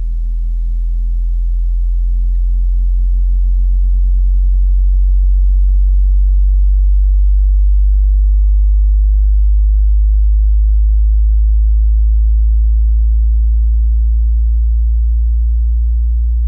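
Car subwoofer playing a 30–60 Hz sine sweep test tone: a single very deep, loud hum that slowly rises in pitch and grows louder over the first few seconds. It is played with the amplifier's subsonic filter switched off, and peaks near 116 dB on the meter.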